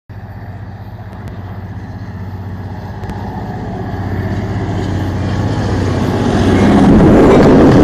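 Diesel locomotive engine running at the head of a freight train as it approaches, with a steady low tone. It grows steadily louder, and the rumble of the train's wheels on the rails swells in about six and a half seconds in as it draws close.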